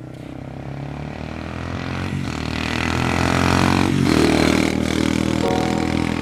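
Motorcycle engine accelerating and growing louder, its pitch breaking and dropping back about two and four seconds in.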